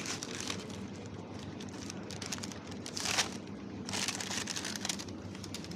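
Crinkling and rustling of a bag or wrapper handled close to the microphone, in several short bouts, over a steady low hum.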